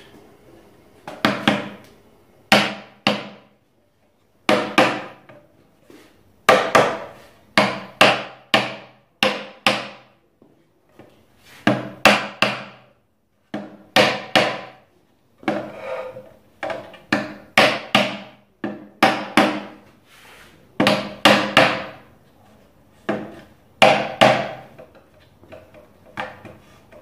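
A small hammer tapping wooden wedges into the split spindle ends where they pass through the bow of a sack-back Windsor chair, locking the glued spindles in place. The sharp, ringing strikes come in clusters of two or three with short pauses between.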